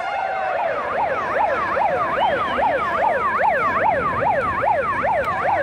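A siren-like noisemaker in the arena crowd warbles, its pitch sweeping up and down about three times a second over crowd chatter.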